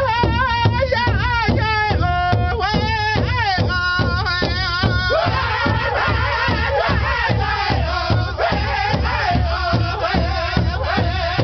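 Powwow drum group singing in high voices over a steady, even beat struck in unison on a large powwow drum. A single lead voice carries the song for about the first five seconds, then the other singers join in.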